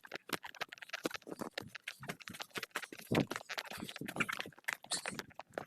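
A chicken being grabbed at and scrambling away: rapid, irregular scuffling taps and rustles, with no clucking.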